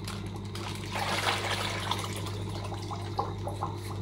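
Water and a goldfish poured from a plastic bag into a small aquarium: a splashing pour starts about a second in and tails off into trickling. A steady low hum runs underneath.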